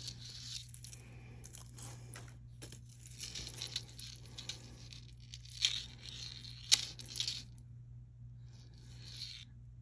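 Costume jewelry being handled: soft rustling with light clicks and clinks of small metal pieces, two sharper clicks about halfway through and a second later, over a steady low hum.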